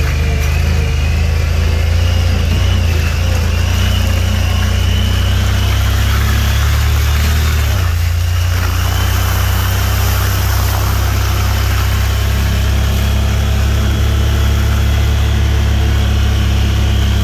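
ATV engine running steadily under way, with the engine note changing about eight seconds in.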